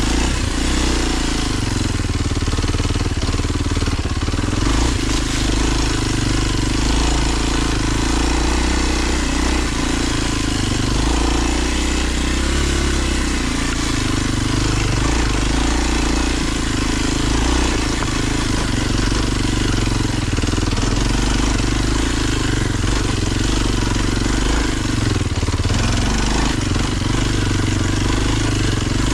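Kawasaki KLX 230's single-cylinder engine running under load as the bike climbs a rough, rocky trail, with the engine note rising and falling as the throttle is worked. Wind rushes over the helmet-mounted microphone and the tyres clatter over rocks.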